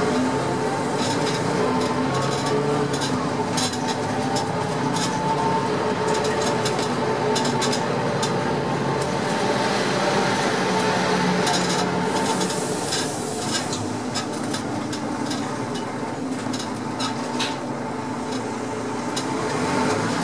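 Cabin noise inside a Heuliez GX417 articulated city bus under way: the drivetrain drones steadily with a whine, while the body and fittings rattle and click. A brief hiss comes about twelve seconds in.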